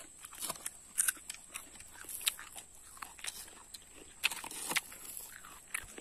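Raw date palm heart being bitten and chewed: a few irregular, crisp crunches spread through the quiet.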